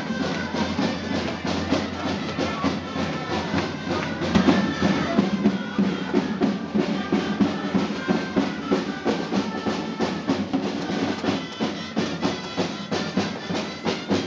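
Live street music for a giants' dance: drums beating a steady rhythm, about two strokes a second, under a melody line.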